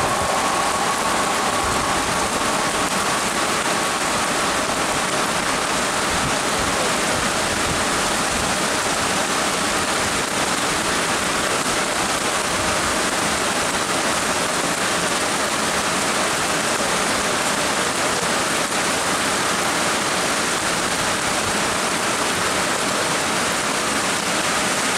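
Heavy monsoon rain pouring steadily onto the tracks and the station platform. A passing express train's rumble dies away under it in the first moments.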